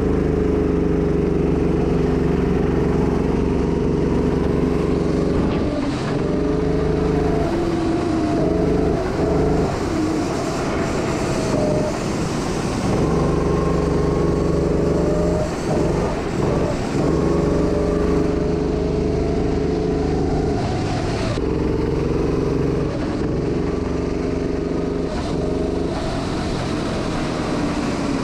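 Go-kart engine heard from the driver's seat as the kart pulls away and laps a wet track, its pitch rising and falling as the throttle opens and closes. There are brief drops in engine note a few times, where the throttle is lifted for corners.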